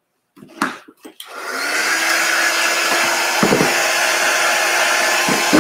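Handheld craft heat tool switched on about a second in and then blowing steadily with a low hum over freshly applied chalk paste, drying it. A couple of light knocks as the frame is handled just before it starts.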